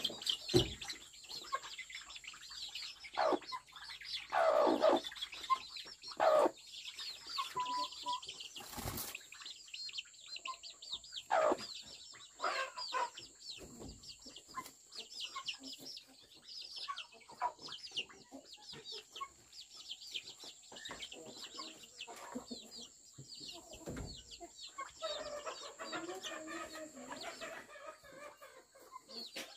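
Chickens clucking, with many quick high-pitched chirps throughout and a few louder calls in the first dozen seconds. Two sharp knocks are heard, one near the middle and one in the last third.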